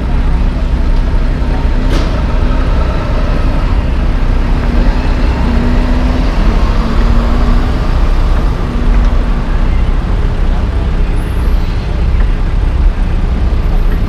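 Heavy diesel engines of paving equipment and dump trucks running steadily under a strong wind rumble on the microphone, with a brief click about two seconds in.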